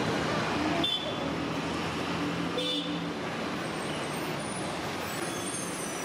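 Erode WDG3A diesel locomotive's ALCO engine chugging as it hauls an empty LHB coach rake away, under a steady rumble of the moving train. A brief horn-like toot sounds about two and a half seconds in.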